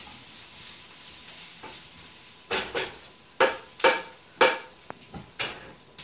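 Wire rabbit cage rattling and clanking as a rabbit is taken out: about six sharp metallic clanks in quick succession, starting about two and a half seconds in, over a steady background hiss.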